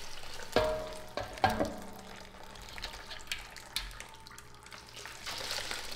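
Hot broth poured from a measuring cup through a mesh strainer into a stainless steel bowl, a steady splashing trickle. There are several sharp clinks and knocks of the cup and strainer against the metal pots, loudest in the first two seconds.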